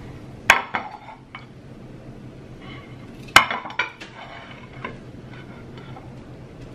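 Ceramic dinner plates set down on a granite countertop: two sharp clatters about three seconds apart, each followed by a few smaller clinks.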